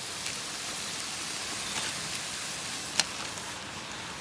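Teriyaki-marinated chicken thighs sizzling on a charcoal grill grate over hot lump charcoal: a steady hiss with a few crackles and pops, the sharpest about three seconds in.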